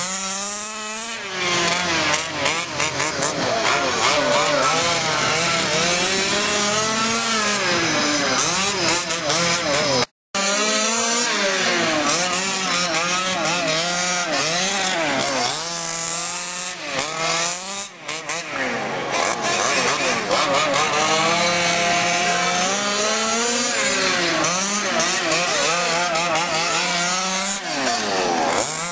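Several 1/5-scale gas RC cars' small two-stroke engines revving up and down as they race around the track, their overlapping whines rising and falling through the straights and turns.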